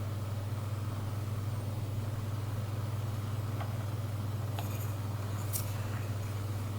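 Steady low hum with no change in pitch or level, and a couple of faint clicks about two thirds of the way through.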